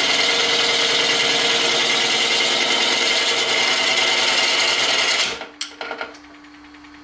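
A turning tool cutting a spinning resin-and-burl-wood hybrid blank on a wood lathe, a loud continuous scraping hiss. About five seconds in the cut stops, a few brief touches of the tool follow, and the lathe then runs on with a low steady hum.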